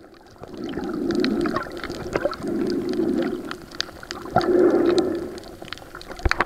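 Muffled water sound heard underwater while snorkelling over a coral reef, swelling and fading three times, each swell about a second long, with scattered sharp clicks throughout and a louder pair of clicks near the end.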